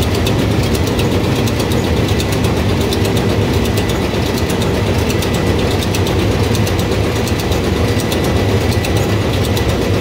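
Akasaka marine diesel main engine running steadily: a loud, deep, even drone with a fast, regular ticking over it.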